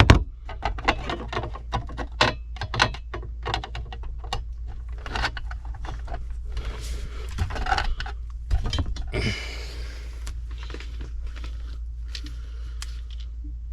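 Irregular small clicks, taps and rustles of hands and tools working on equipment, over a steady low hum, with a short scraping hiss about nine seconds in.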